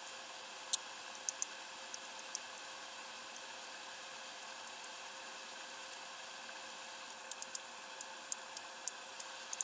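Kitchen knife tapping on a cutting board while slicing peeled garlic cloves into slivers: a few sharp clicks in the first couple of seconds, a pause, then a quicker run of taps near the end, over a steady faint room hiss.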